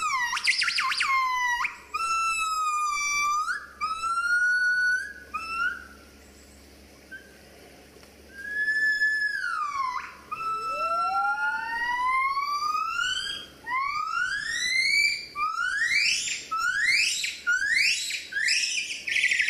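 Gibbon singing: pure, whistle-like hoots that glide down and up in pitch. After a lull of a couple of seconds, the notes rise, coming faster and climbing higher toward the end.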